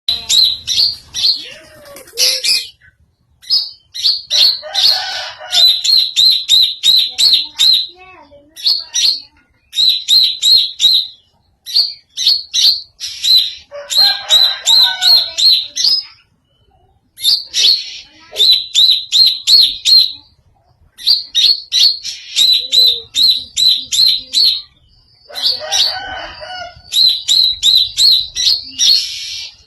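Greater green leafbird (cucak ijo) singing an unusual song: runs of fast, sharp, high chirps repeated in bursts of a few seconds with short pauses between, and lower, harsher chattering notes mixed in three times.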